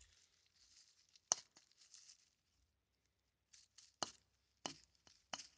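Faint handling noise from a wooden beard comb being turned in the hand: one sharp click about a second in, then a few softer clicks near the end, over a light hiss.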